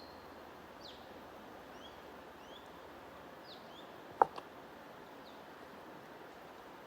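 Songbirds making scattered short, rising chirps over a steady background hiss. A single sharp click about four seconds in stands out above them.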